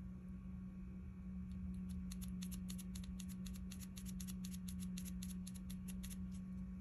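Small plastic glitter shaker being shaken and tapped over a cup of epoxy resin: a quick run of light, high ticks, several a second, starting about a second and a half in and stopping shortly before the end, over a steady low hum.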